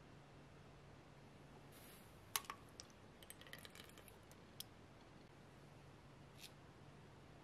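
Faint, light clicks and taps of glassware being handled: a drinking glass of kefir set against and tipped over a glass blender jar. The sharpest tap comes a little over two seconds in, followed by a quick cluster of smaller clicks, over a faint low hum.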